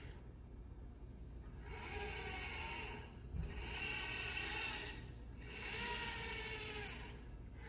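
Small robotic arm's motors whining through three moves of a pick-and-place program, each move a few seconds long with a short pause between, the pitch bending as the joints speed up and slow down.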